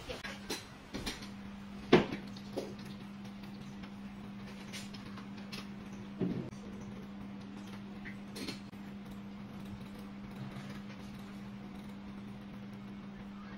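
Metal jigging lures clicking and tapping against each other and against the fingers as they are picked up and handled, with the sharpest click about two seconds in, over a steady low hum.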